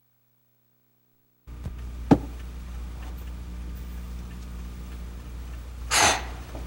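Dead silence for the first second and a half, then a low steady hum with one sharp knock about two seconds in and a short, louder hit about six seconds in.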